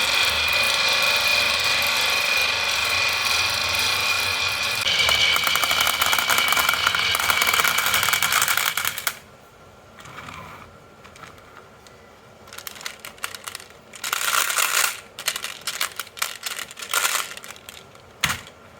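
Marbles rolling along a HABA wooden marble run: a dense, continuous rolling rattle for about nine seconds that stops abruptly, followed by scattered bursts of clattering and clacking.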